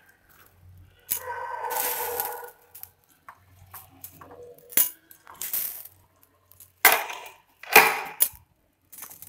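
Cauliflower florets dropped a few at a time into a steel pot of water with peas, giving several short splashes and clinks against the pot.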